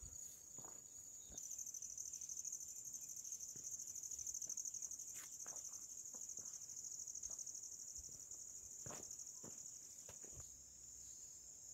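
Crickets trilling in a steady high-pitched chorus, which grows louder about a second and a half in and eases near the end. A few faint ticks sound over it.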